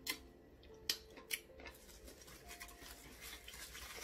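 Close-up eating sounds: a few sharp wet mouth clicks while chewing eba in the first second and a half, then a scratchy crinkling of the plastic wrap around the eba as a hand pulls off another piece.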